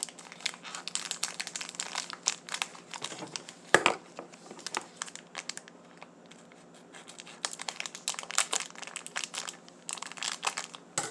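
Crinkling packaging of a Nature Valley Sweet & Salty Nut granola bar being handled and opened: a rapid run of crackles, sharpest about four seconds in, easing off briefly past the middle before starting again.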